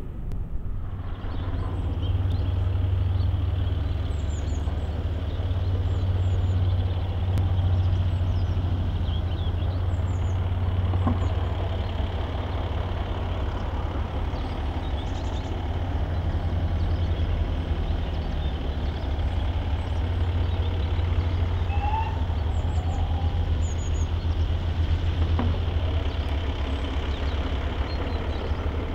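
A heavy engine idling steadily: a deep continuous hum with a fine, even pulse, and small high chirps now and then.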